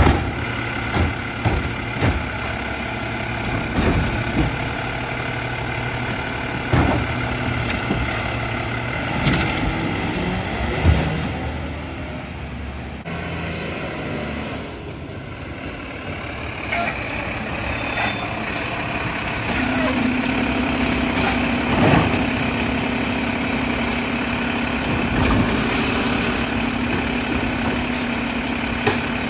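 Mack LEU garbage truck with a Labrie Helping Hand automated side arm: the diesel engine and hydraulics run steadily, with knocks and clunks as the arm sets a recycling cart back down. In the second half the truck drives up and runs with a steadier, lower hum.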